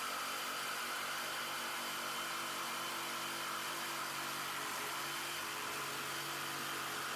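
Steady whirring hum of a small motor running at constant speed.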